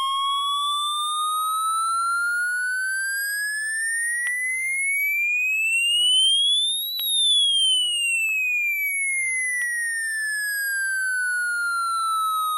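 Midland HH50 weather radio's alert tone, set off by a NOAA Weather Radio required weekly test: a single electronic tone rising slowly in pitch for about seven seconds, then falling slowly back down, like a siren.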